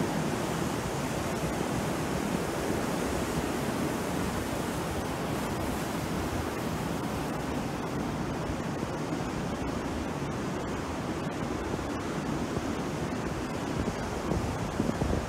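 Sea surf breaking and washing onto the shore: a steady rushing noise that swells a little louder near the end.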